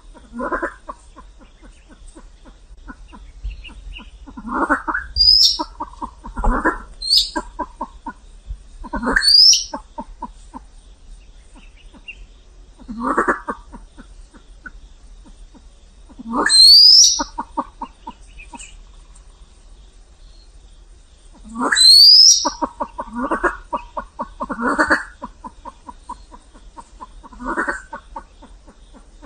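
Silver pheasants calling: short rattling calls repeated every few seconds, several of them carrying a quick rising whistle.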